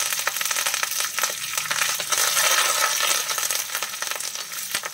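Fresh curry leaves and dried red chillies sizzling in hot oil, spattering and crackling over a steady hiss as the tempering fries. The sizzle eases a little near the end.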